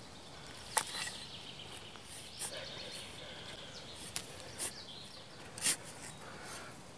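A small short-handled steel spade chopping and scraping into dry, sandy forest soil while a hole is dug by hand, giving about five short, sharp strikes a second or so apart.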